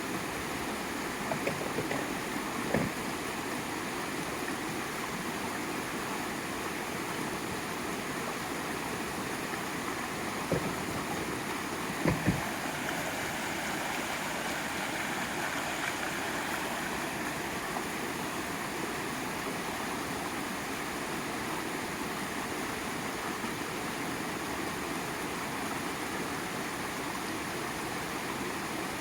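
Wood campfire burning, with a few sharp pops and cracks: several near the start, one about ten seconds in and a quick pair about twelve seconds in. Under them runs a steady rushing sound like a stream.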